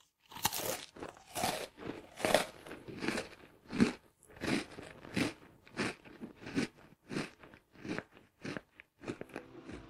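A person biting and chewing crisp food: a run of loud crunches, about one and a half a second, coming a little faster near the end.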